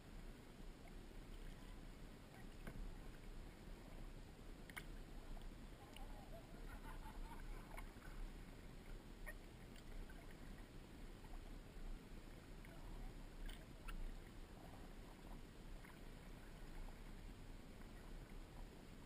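Faint kayak paddling on open water: low, steady water and wind noise with a few light knocks and clicks.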